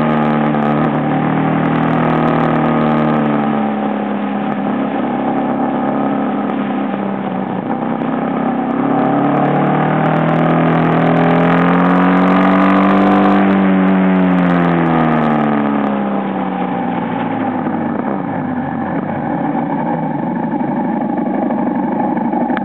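Aprilia Pegaso motorcycle engine under way, picked up by a camera on the handlebar fairing, with wind and road hiss. The revs hold, drop a few seconds in, climb again around the middle, then fall away and run low for the last several seconds as the bike slows.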